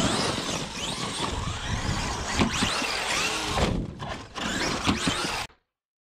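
Traxxas XRT RC truck's brushless motor and drivetrain whining, rising and falling in pitch under throttle, over a steady noise of knobby tyres scrabbling and spraying loose dirt. The sound cuts off abruptly about five and a half seconds in.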